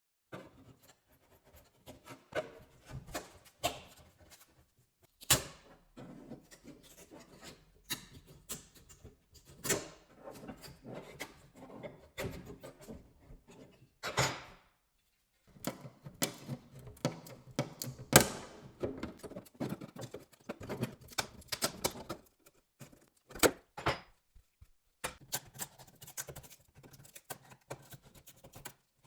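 Irregular taps, knocks and short scrapes of hand-tool work on old wooden furniture, with a few louder sharp strikes in between.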